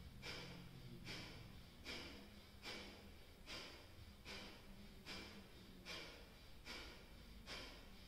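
Kapalbhati yoga breathing: faint, sharp forced exhalations through the nose, about ten of them, roughly one every 0.8 seconds.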